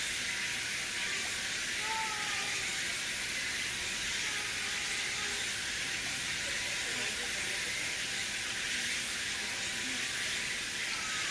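A steady, even hiss, with a few faint brief voice-like calls or chirps now and then.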